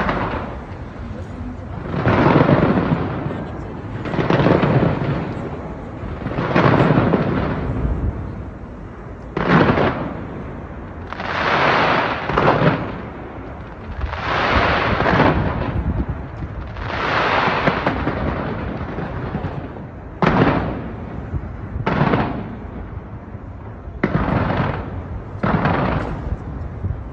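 Fireworks going off in a series of loud bursts, about one every two seconds, each trailing off in echo.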